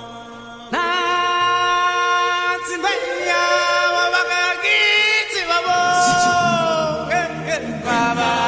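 Vocal music: a melody sung in long held notes that glide in pitch, coming in loudly less than a second in.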